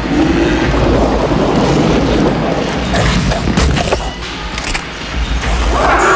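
Action-horror film soundtrack: deep rumbling booms and a few sharp impacts under music, then a demon's growling roar starting near the end.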